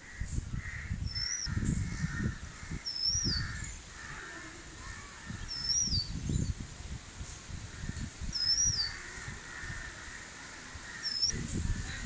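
Wind buffeting the microphone in irregular low gusts ahead of a storm, with crows cawing in short runs near the start and again near the end. Another bird gives a short rising-and-falling whistle every couple of seconds.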